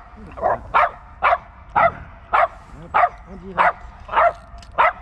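A dog barking in a steady run of short, sharp barks, about two a second.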